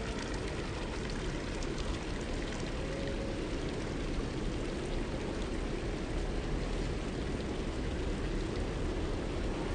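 Garden water fountains running, a stone water wall and an urn fountain: a steady rush of splashing, trickling water.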